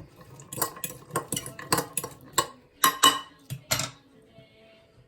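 Spoon stirring chopped vegetables in a glass bowl: a quick run of sharp clinks and scrapes against the glass, stopping about four seconds in.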